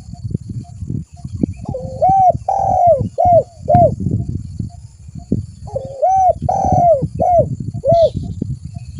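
Spotted dove (tekukur) cooing: two phrases of arched, rising-and-falling coos, one starting about two seconds in and another about six seconds in, each lasting roughly two seconds. They sit over an uneven low background rumble.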